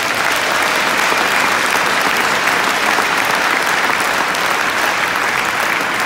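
Large crowd applauding steadily in an ice hockey arena.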